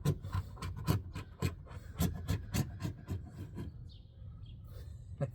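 Hand scraping and rubbing strokes, a few a second and irregular, as old window adhesive is worked off the quarter-window opening of a Pontiac Fiero. The strokes ease off briefly about four seconds in.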